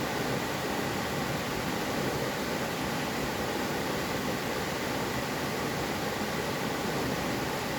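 Mountain stream water rushing over rocks, a steady even rush.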